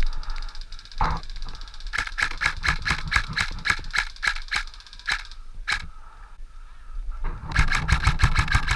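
Airsoft gun firing strings of shots: a run of sharp cracks at about four a second starting two seconds in, then a faster string near the end.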